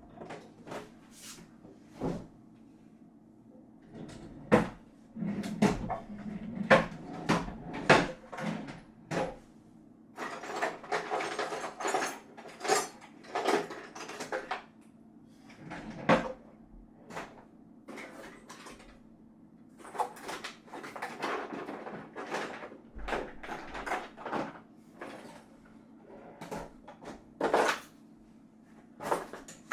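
Someone rummaging through cupboards: scattered knocks and clicks with bursts of clattering and rustling, busiest in the first half.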